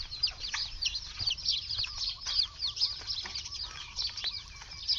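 Many small birds chirping, a dense chorus of short, high, downward-sliding chirps overlapping one another without a break.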